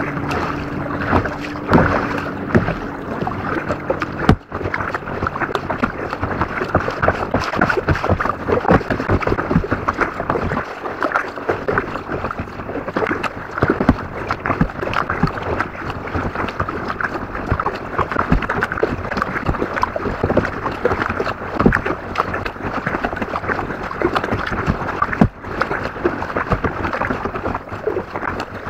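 Kayak being paddled: the paddle blades dipping and dripping, heard as a continuous crackle of small splashes close by. A faint steady hum stops about four seconds in.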